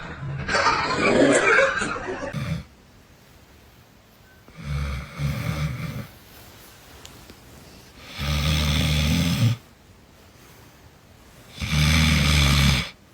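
Loud snoring: three long, low, buzzing snores about three and a half seconds apart, the first broken in two. They follow a couple of seconds of a different loud, noisy sound.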